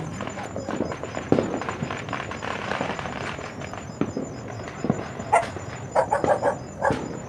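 A dog barking several times in quick succession, starting a little past halfway.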